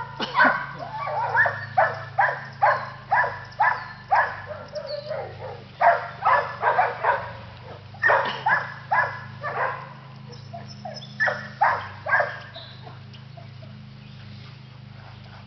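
English Setter puppy barking in a long series of short barks, about two a second, with a brief lull around five seconds in, stopping about twelve and a half seconds in.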